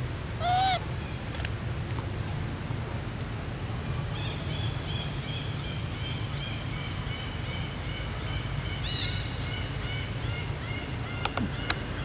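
Forest animal calls: one short, clear, arched call about half a second in, the loudest sound here, then rapid, evenly repeated high chirping from about four seconds on, over a steady low rumble.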